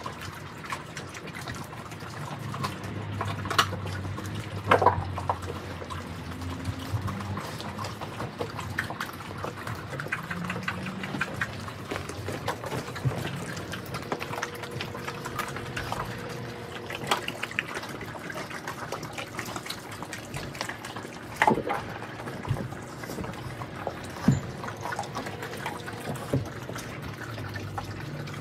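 Several mastiffs eating raw turkey: wet chewing, smacking and licking, with sharp crunches of bone now and then. The loudest crunches come about five seconds in and about two-thirds of the way through.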